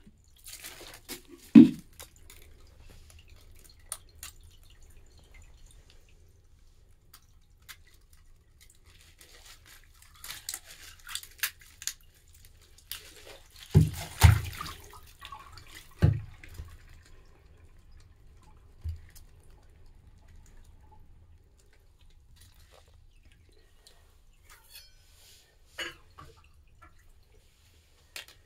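Water dripping while a plastic hand-cleaner tub is worked loose from a frozen ice lantern and lifted off, with scattered knocks and scrapes of the plastic against the ice. A loud knock comes near the start and a cluster of knocks about halfway through.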